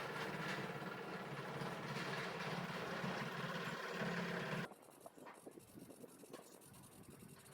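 A motor running with a steady hum, cut off abruptly a little over halfway through, followed by a few faint clicks.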